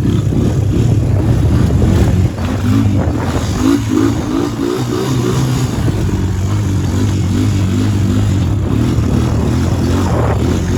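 ATV engine running while riding on sand, its pitch rising and falling with the throttle.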